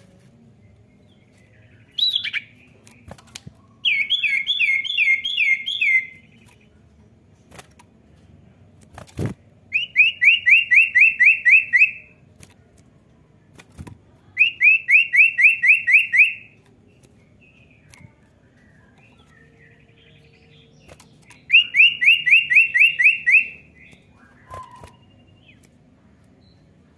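Common iora singing four bursts of a fast trill, each about two seconds of rapidly repeated, downward-slurred whistled notes. A short call comes about two seconds in, and there is a single sharp click around nine seconds.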